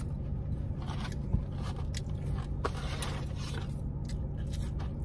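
Close-up chewing of crispy french fries: a run of short crunches, one every half second or so, over a steady low hum.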